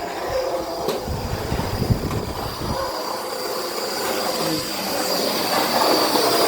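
Dirt Devil Power Max Pet upright vacuum cleaner running steadily: a motor whine over a rushing airflow hiss, growing louder toward the end.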